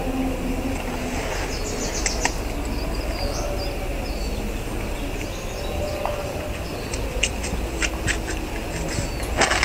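A few short, faint animal calls over a steady outdoor background hiss and hum, with scattered sharp clicks.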